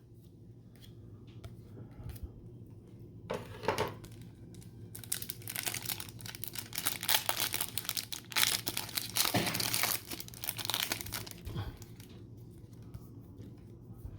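Plastic wrapper of a football trading-card pack being opened and crinkled, densest for about six seconds in the middle, with scattered light clicks and rustles before and after.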